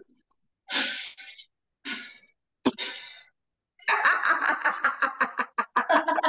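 A woman blowing out hard puffs of breath as if blowing up a balloon, then a sharp click, then quick pulsing bursts of loud open-mouthed laughter as a deliberate laughter-yoga exercise.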